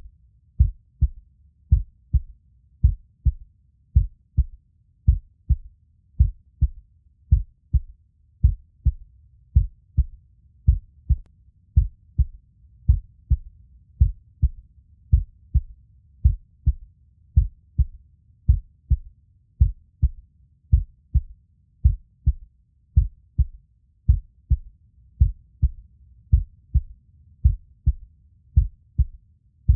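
Heartbeat: a steady lub-dub double beat, low and thudding, repeating about once a second at an even resting pace.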